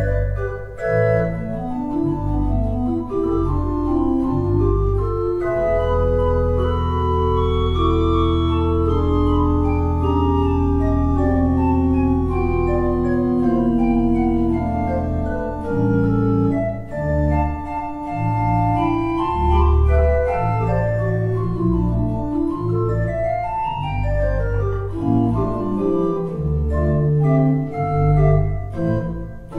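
Church organ playing slow sustained chords, with a low bass note held for several seconds in the middle before the harmony moves on.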